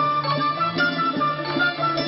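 Persian instrumental music: a plucked-string melody of short notes over a steady low note.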